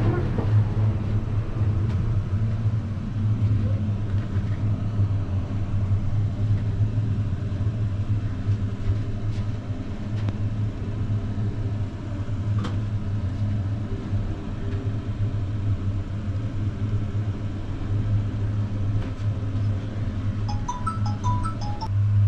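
Steady low drone inside an enclosed aerial ropeway cabin as it travels along the cable over the river, with a couple of faint clicks.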